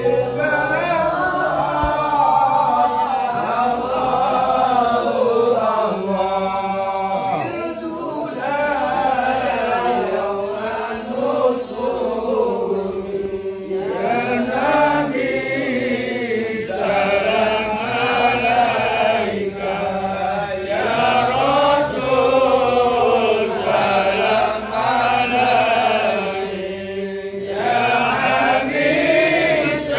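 A group of men chanting Islamic devotional verses together in unison, the melody rising and falling in long sung phrases with brief breaks between them.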